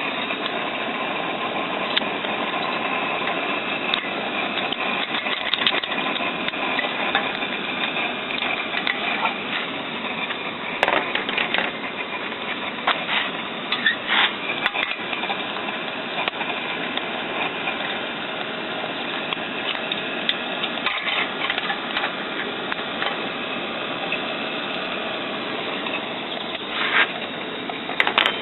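1-inch scale live-steam model Fowler ploughing engine running steadily, a continuous mechanical clatter with a few sharper clicks.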